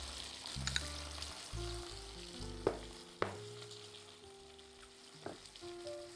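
Steady sizzle of a piadina flatbread frying in a pan, with a few sharp clicks of a metal fork against a ceramic plate as cooked chicken is shredded. Soft background music runs underneath.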